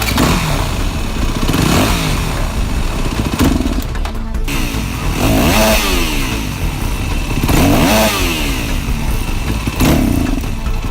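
Motorcycle engine being revved over and over, the throttle blipped about every two seconds so the pitch rises and falls back each time.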